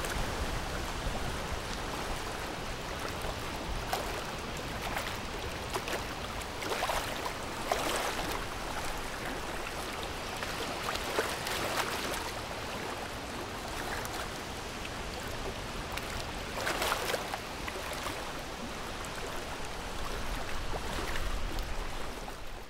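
A steady rushing ambience, a wind- or water-like hiss that swells irregularly every second or few seconds.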